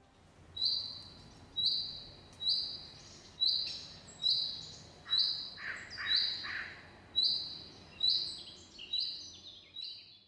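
A bird calling: about a dozen short, high notes, roughly one a second, getting fainter near the end.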